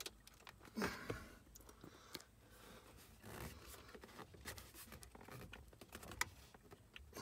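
Faint handling noise of hands working a wiring harness and its plastic connectors inside a vehicle's lower dash panel: scattered small plastic clicks and light rustling. Sharp clicks come at about one second in, at two seconds in, and again near the end.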